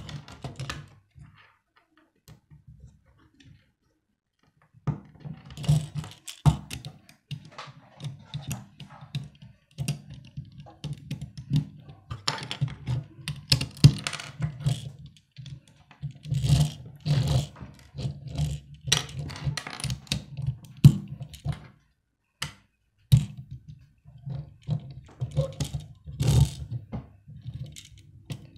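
Plastic Lego bricks clicking, snapping and rattling as they are handled and pressed onto a small model car, in irregular bursts of sharp clicks and light knocks with a pause a couple of seconds in.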